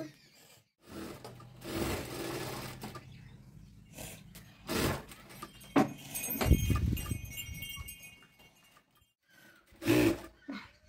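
ZOJE industrial single-needle lockstitch sewing machine stitching fabric in short runs, starting and stopping with pauses between. A brief loud voice-like call sounds near the end.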